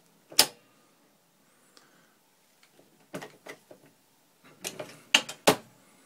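MEC Junior Mk 5 single-stage shotshell press worked by hand. A sharp clack comes about half a second in, then a run of knocks and clacks from about three seconds in, loudest near the end. These are the 12-gauge hull being set in the next station and the press head being pulled down.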